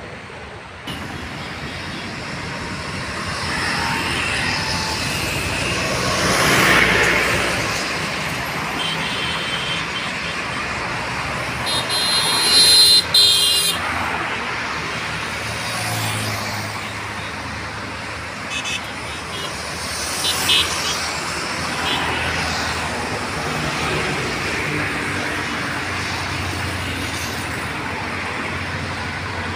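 Road traffic passing on a busy highway, a steady hum of vehicles with one passing close about six seconds in. A vehicle horn blares for about two seconds near the middle, the loudest sound, with a couple of short toots later.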